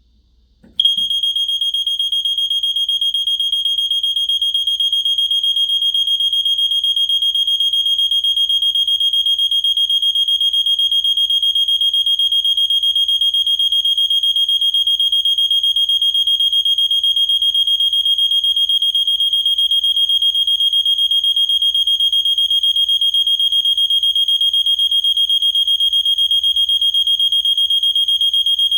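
System Sensor PS241575ADA fire alarm horn strobe sounding, switching on a little under a second in with a single continuous high-pitched horn tone. The tone holds steady and unbroken rather than pulsing in a pattern.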